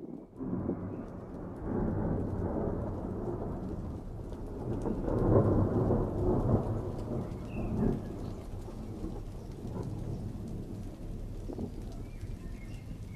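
Thunder rumbling from a storm cloud. The low rumble swells about five seconds in, then slowly eases off.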